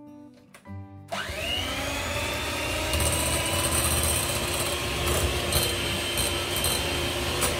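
Electric hand mixer switched on about a second in, its motor whine rising as it spins up and then running steadily. Its beaters are whipping fresh cheese and sugar in a glass bowl until the sugar dissolves.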